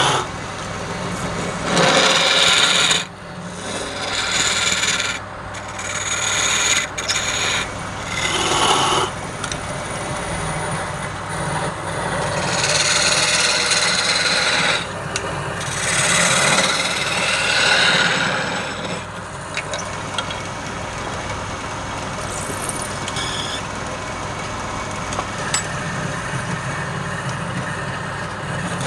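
Wood lathe running with a steady low hum while the spinning workpiece is worked in repeated scraping bursts of a second or two each, quieter and steadier in the last part.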